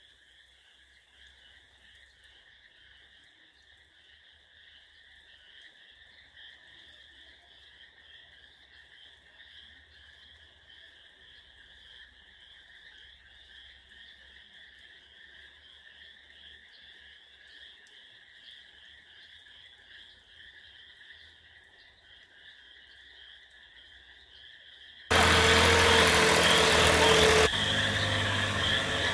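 A faint, steady chorus of calling frogs and insects, high and trilling. About 25 seconds in it cuts abruptly to a loud engine running, which drops in level and pitch at a second cut near the end.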